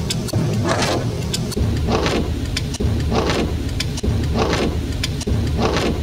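Windshield wipers sweeping across a wet windscreen, heard from inside the car's cabin over the engine's low rumble. The same clip of about a second repeats as a loop, giving five sweeps about a second and a quarter apart, each restart cut in abruptly.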